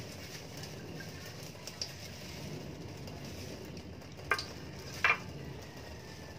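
Thin stream of tap water running into a stainless steel sink while plastic-gloved hands rub and rinse an ink-soaked printer part. Near the end, two sharp knocks less than a second apart as the black plastic part hits the sink.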